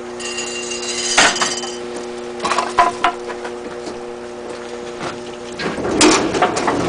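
Wooden and metal knocks and clunks as a log is worked into place and secured on a sawmill carriage, the loudest about a second in and a few more around the middle, over a steady hum. Near the end the hum gives way to a louder, rougher noise.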